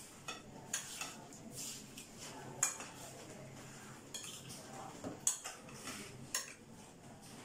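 Hands rubbing yogurt marinade into boneless chicken pieces in a glass bowl: faint wet squishing, with light clinks against the glass every second or so.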